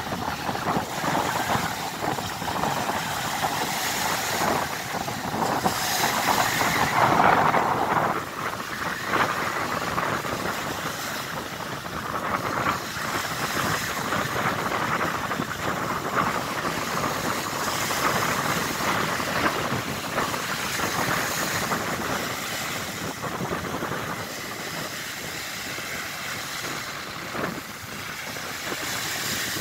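Strong wind buffeting the microphone over waves breaking and washing up on a beach, gustier and louder for the first several seconds, then steadier.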